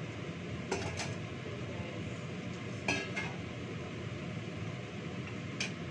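Metal bowls and pans clinking as they are handled on a kitchen counter: two quick clinks about a second in, two more about three seconds in, and one near the end, over a steady low hum.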